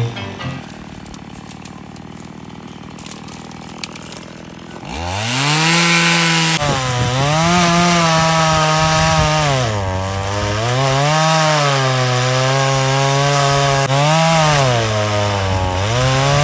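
Gas-powered two-stroke chainsaw. It runs quietly at first, then about five seconds in it revs up hard to full throttle. Its pitch drops twice as the chain bites into the tree's wood under load and climbs again as it frees.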